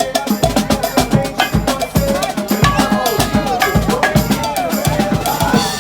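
Music with a steady drum beat, about two beats a second, under a moving melody.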